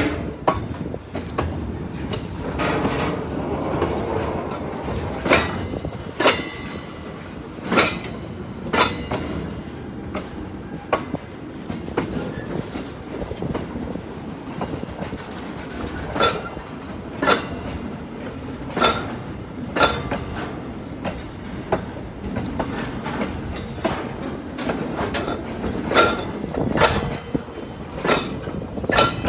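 Freight train of loaded container wagons rolling slowly past, its wheels clacking over the rail joints in sharp clunks about once a second over a steady rumble.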